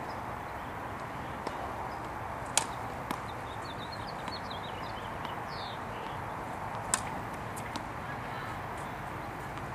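Steady outdoor background noise with small birds chirping, broken by two sharp knocks, one about two and a half seconds in and one about seven seconds in.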